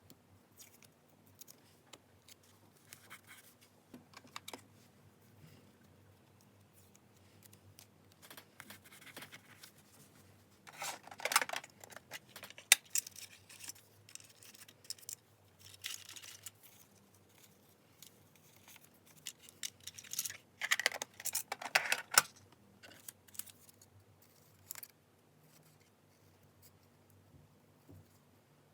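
Scissors cutting paper in two runs of quick, crisp snips, one about a third of the way through and one past two-thirds, with light paper rustles and taps in between.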